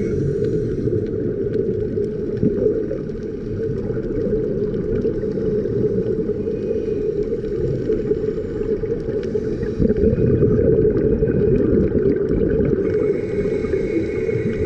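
Underwater reef ambience: a steady, muffled low rumble with faint scattered clicks.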